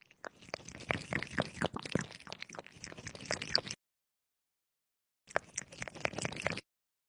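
Kitten lapping water from a glass cup: a run of quick, small wet clicks. It stops dead for about a second and a half midway, then comes back briefly.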